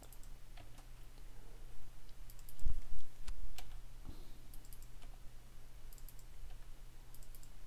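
Computer keyboard keystrokes and mouse clicks during code editing, coming a few at a time in short groups with pauses between, over a low steady hum.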